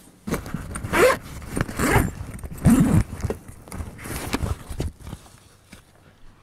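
A bag being unzipped and handled: a run of loud rustling and scraping bursts that die away after about five seconds.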